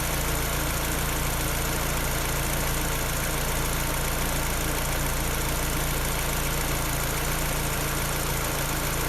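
Peugeot 308 engine idling steadily with a clacking that the owner cannot identify, an unexplained noise from the engine.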